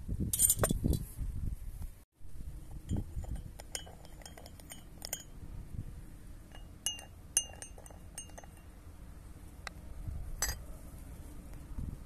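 Metal teaspoon clinking against glass coffee cups: quick runs of light ringing taps as it stirs, a pause, a second run, and one last clink near the end. A brief rushing noise comes in the first second or so, before a sudden break.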